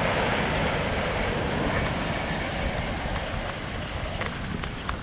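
Waves surging and breaking against jetty rocks, with wind rumbling on the microphone. The wash is loudest in the first two seconds and eases a little after.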